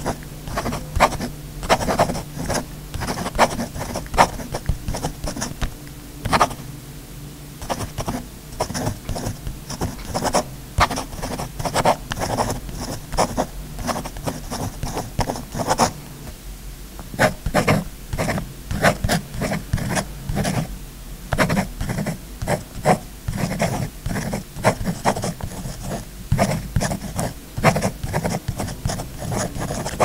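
A pen scribbling: quick, irregular scratchy strokes in runs, with a couple of brief pauses.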